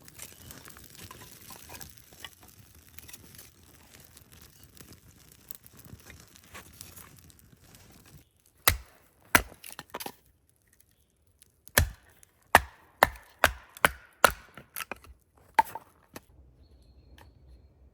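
Wood being chopped: about a dozen sharp, single blows at an uneven pace, following several seconds of faint rustling.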